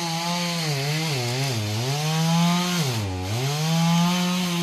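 Chainsaw running at high revs, its engine note dipping and recovering about three times, most deeply about three seconds in.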